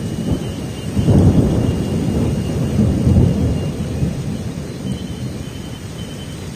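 Storm-force wind gusting hard against the microphone, a deep uneven rumble that swells about a second in and eases slightly toward the end.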